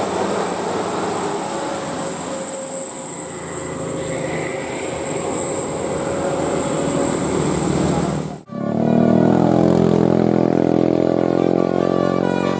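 Bus engine and road noise with a steady high whine. About eight seconds in it cuts off abruptly, and loud, held multi-note tones begin.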